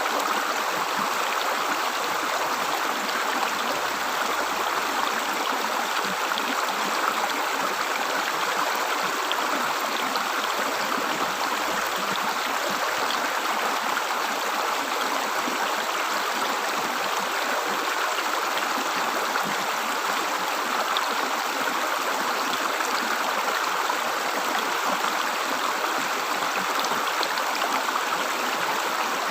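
River water gurgling as it flows, a steady, unchanging rush.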